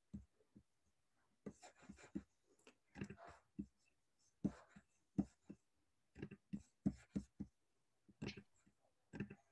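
Quiet call audio: scattered faint clicks and pops, with a few brief, muffled fragments of voice.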